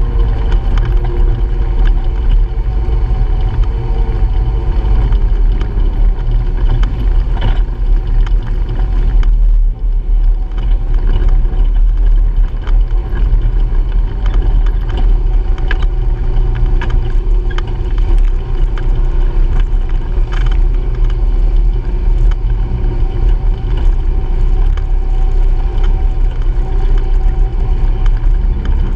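Honda Pioneer 700-4 side-by-side's single-cylinder engine running steadily under way on a dirt trail, its drone drifting up and down in pitch with the throttle. Under it runs a strong low rumble, and scattered clicks and rattles come over the bumps.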